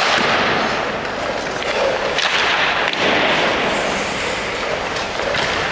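Hockey rink sounds: a steady scraping hiss of skates on the rink surface, broken by a few sharp knocks.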